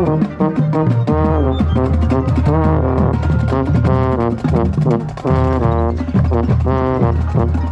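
Marching band brass playing a loud passage, with a euphonium played right beside a head-mounted microphone; some notes slide in pitch.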